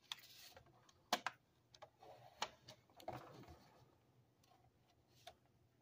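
Near silence broken by about half a dozen faint, scattered clicks and taps: handling noise from the phone being held and moved.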